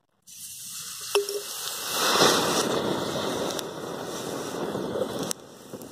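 Potassium permanganate and glycerin reaction flaring up in a steel bowl: a sharp click just after a second in, then a rush of hissing and crackling as the mixture ignites and burns, loudest a little after two seconds.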